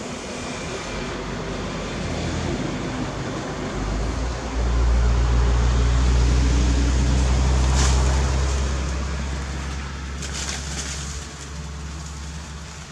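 Engine of a passing motor vehicle: a low drone that swells about four seconds in and fades away over the last few seconds, with a few short clicks in the middle.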